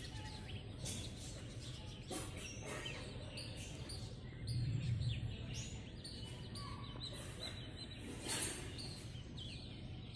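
Faint birds chirping, many short repeated calls, over low outdoor background noise, with a brief low rumble near the middle.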